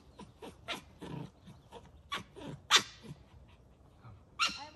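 Small fluffy dog yapping in a string of short, sharp barks, with the loudest one about halfway through.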